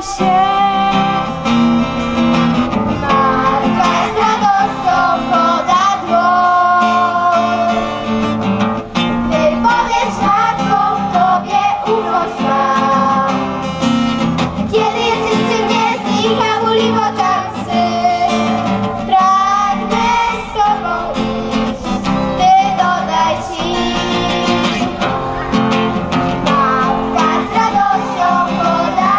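A group of children singing a song together, with instrumental accompaniment.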